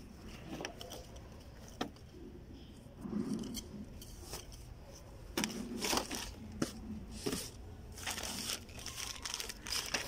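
A cloth pouch and plastic packaging being handled and unwrapped by hand, rustling and crinkling in irregular short bursts with a few sharp clicks.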